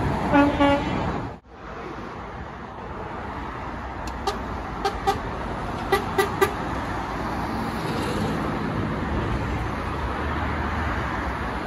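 A truck horn sounds a loud short blast, and after a brief dropout, passing truck engines and traffic run steadily under a string of six short horn toots about four to six and a half seconds in.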